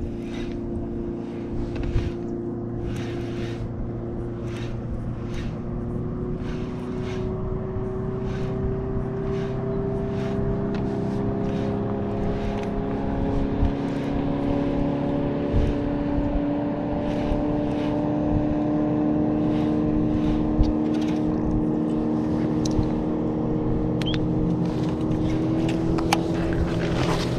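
A motor running steadily, its hum slowly rising in pitch and growing a little louder, with short faint ticks scattered over it.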